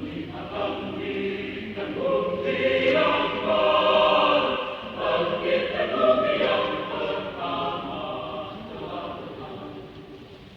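Mixed adult choir singing in several parts. It swells to its loudest a few seconds in and grows softer near the end.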